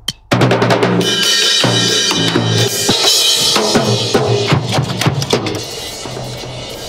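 Drum kit played hard: a dense, irregular flurry of bass drum, snare and tom hits with cymbals washing over them, starting abruptly a moment in and easing off near the end.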